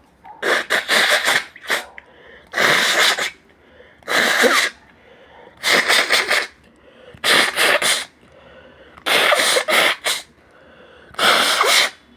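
A person sneezing repeatedly in a run of induced sneezes: about seven loud, explosive sneezes, roughly one every one and a half seconds, with quieter breaths between them.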